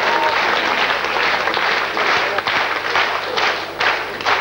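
Audience applauding, a dense, steady clapping that grows sharper and more separate near the end.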